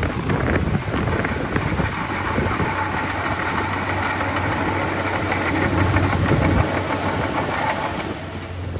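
Heavy diesel engine of earthmoving machinery running steadily, swelling a little about six seconds in, then easing off near the end.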